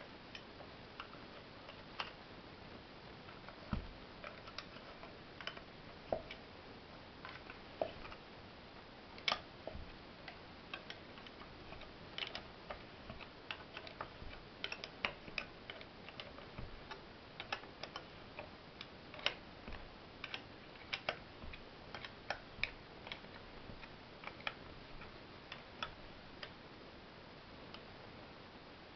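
Irregular light clicks and taps, roughly two a second, from hands and a tool working the end cover and stud nuts onto a small three-phase electric motor's housing.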